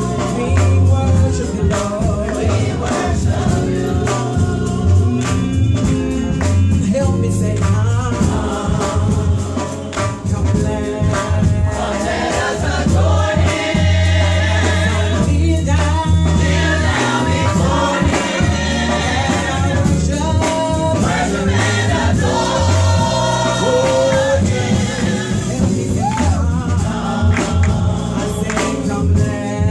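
Gospel choir singing in full voice over a band backing with a heavy bass line and steady percussion.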